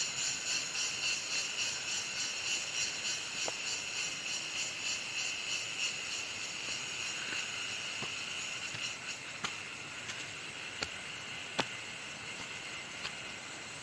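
A high-pitched insect chorus, typical of cicadas, pulsing about twice a second and fading over the first two-thirds. Several sharp clicks come in the second half.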